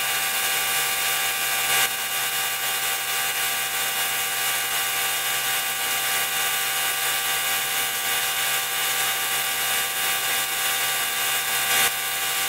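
Gravity-feed spray gun hissing steadily as it sprays a light coat of clear onto a wheel, with steady whistling tones running through the hiss. The sound jumps briefly about two seconds in and again near the end.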